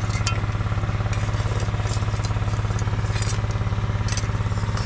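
A small engine running steadily at a constant speed with a rapid, even putter. A few light clinks of metal cookware sound over it.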